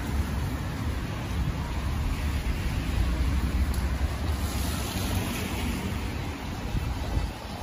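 Street ambience on a rain-wet street: a steady hiss of traffic on the wet road, swelling a little midway, over low wind rumble on the microphone.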